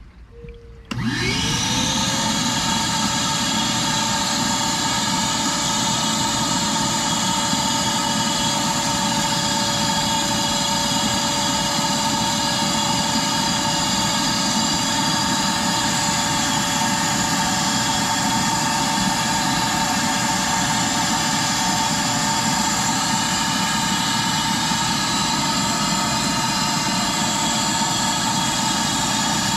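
Shop-Vac wet/dry vacuum motor switched on about a second in, whining up to speed and then running steadily as it sucks pond water and muck up through the hose.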